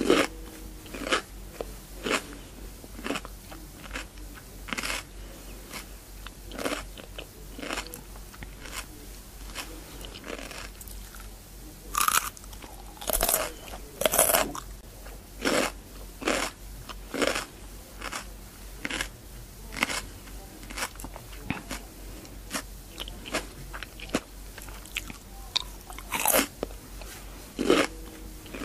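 A person biting and chewing cucumber: a run of crisp, wet crunches about one every half second to a second, with louder bites around the middle and near the end.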